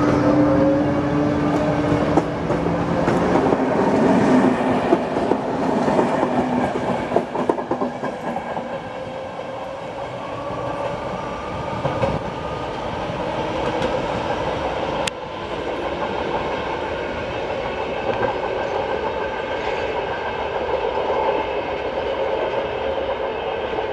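ČD Class 163 electric locomotive accelerating away with a rising whine from its thyristor-chopper traction equipment, followed by the clickety-clack of its passenger coaches' wheels over rail joints. The train recedes while its steady electric whine fades.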